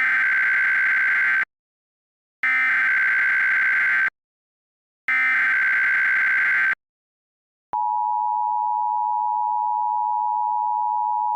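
Emergency Alert System SAME header: three identical bursts of warbling digital data tones, each about a second and a half long, that encode the coming alert. Nearly eight seconds in, the steady two-tone EAS attention signal starts and holds.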